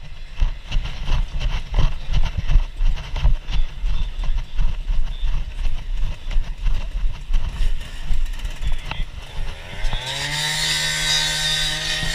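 Uneven low rumbling and knocking. Then, about nine and a half seconds in, an engine's pitch rises and holds at a steady high speed, with a strong hiss over it.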